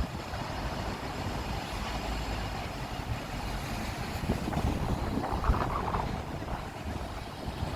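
City street ambience: a steady rumble of passing traffic, with a brief higher-pitched sound about five seconds in.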